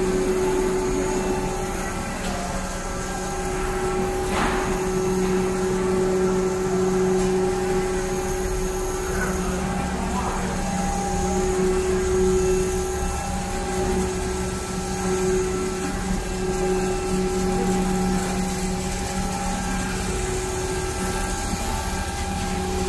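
Steady hum of running factory machinery, with one sharp click about four and a half seconds in.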